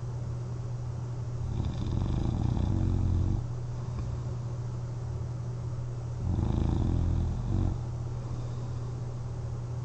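A person sleeping on their back snoring while wearing a CPAP mask: two snores about four and a half seconds apart, each lasting about two seconds, over a steady low hum.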